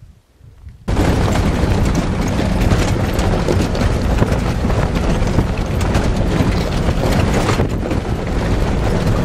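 Heavy wind buffeting and road rumble on the microphone of a camera mounted on the outside of a moving car. It cuts in abruptly about a second in and then stays loud and steady.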